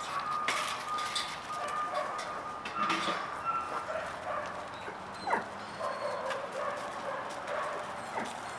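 Dogs whining and yipping, with a sharp falling yelp about five seconds in, over scattered crunching of paws on gravel.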